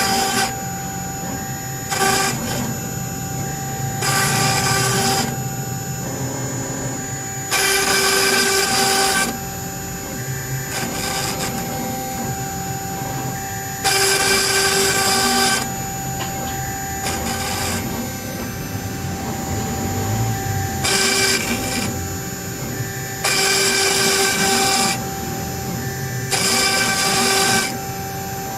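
CNC stone-engraving machine running: a steady whine with fixed tones, broken every few seconds by louder, hissy bursts of a second or two as the cutter works.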